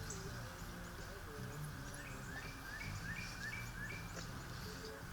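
A bird singing a run of about seven short, rising chirps, about three a second, starting about two seconds in, over a low outdoor background murmur.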